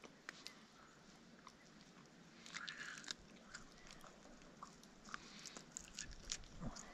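Faint chewing and tearing of fire-roasted snowshoe hare meat, pulled apart by hand and eaten, with scattered small clicks and a short crunchy patch about two and a half seconds in.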